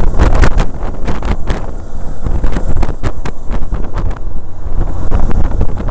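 Wind buffeting over the microphone of a moving BMW K1100LT motorcycle. It comes in loud, uneven gusts and rushes over a low road-and-engine rumble.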